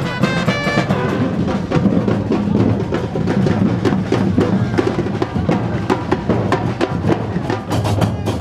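Drum-heavy music: a dense, steady beat of drums and percussion, with a short melodic line in the first second.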